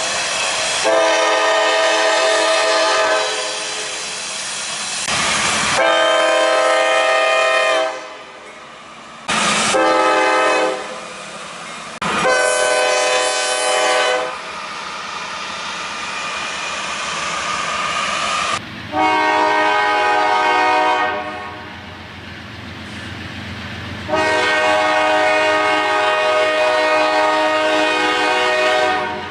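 Nathan Airchime K5LA five-chime locomotive air horn sounding a chord in the grade-crossing pattern: long, long, short, long. After a cut it gives two more long blasts. Train running noise fills the gaps between blasts.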